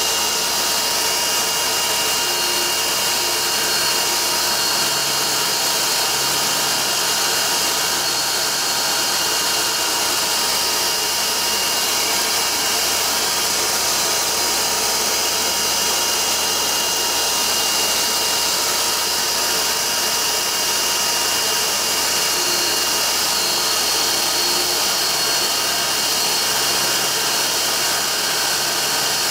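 Deckel-clone D-bit grinder running, its diamond wheel grinding the relief on a four-flute carbide end mill, with a dust-extraction vacuum running at the front of the machine. The sound is a steady, even rush with a thin high whine over it.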